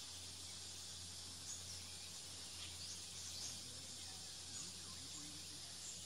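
Forest ambience: a faint, steady high hiss of insects, with a few faint short bird chirps now and then.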